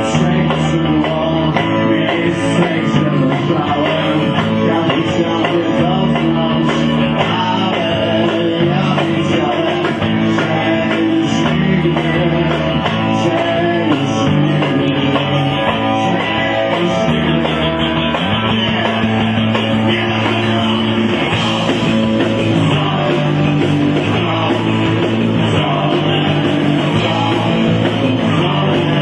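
Rock band playing live, with electric guitar to the fore and some singing. The sound is dull and muffled, with almost no treble.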